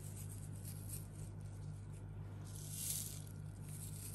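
Dried thyme being crumbled between gloved fingers and sprinkled over the food: a faint dry rustling that grows a little louder about three seconds in.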